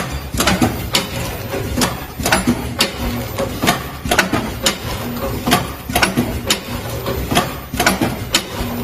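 Packing machine running: a repeating series of sharp mechanical clicks and clacks, roughly two a second, over a steady low hum.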